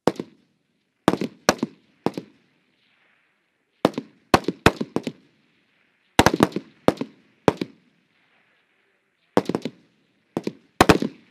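Rifle shots on a firing line, several shooters firing single shots at an irregular pace, some landing in quick pairs and clusters. Each is a sharp crack with a short echo.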